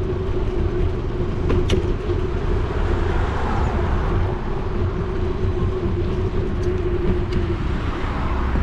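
Riding noise on a bicycle-mounted action camera: steady low rumble of wind and tyres rolling on a paved bike path, with a steady hum that stops about seven and a half seconds in. A single sharp click comes a little under two seconds in.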